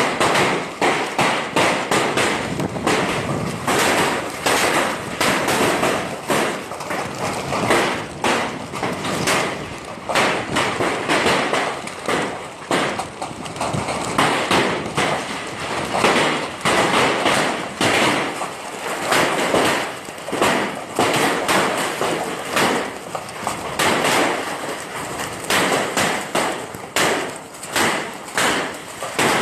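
Heavy hail pelting down: a dense, uneven clatter of hailstones striking, over a steady hiss.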